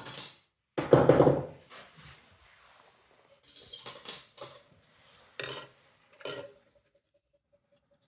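Hard clattering knocks and scrapes of small parts being handled and set down on a work surface during the teardown of a smoke detector. The loudest is a heavy knock about a second in, followed by a few lighter knocks.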